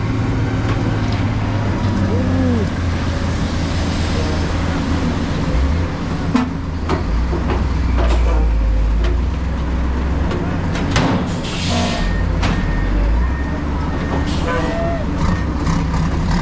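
Heavy dump trucks' diesel engines running, their low hum shifting as the engines change speed. There is a short hiss of air about eleven seconds in.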